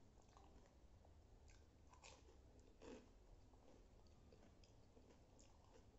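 Faint chewing and crunching of pani puri, the crisp hollow puri shells, with a couple of louder soft crunches about two and three seconds in.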